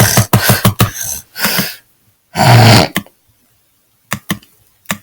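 A person making a fast string of short, harsh throat and mouth noises, then one longer loud burst about two and a half seconds in. Near the end there are a couple of faint clicks.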